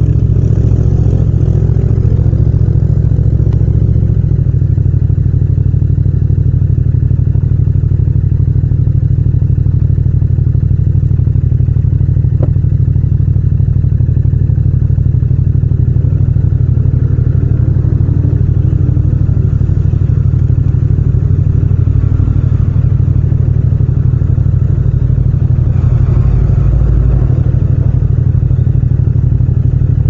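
Yamaha MT-07's 689 cc parallel-twin engine idling steadily while the bike stands at a red light, after the low engine note settles about four seconds in as the bike comes to a stop.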